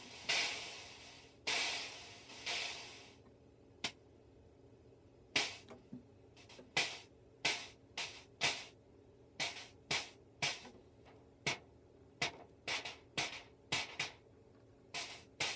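Modified Simmons electronic drum sound module playing synthesized drum hits. It opens with a few long, noisy hits that hiss away over a second or two, then goes into a run of short, sharp hits at an uneven pace of about one or two a second.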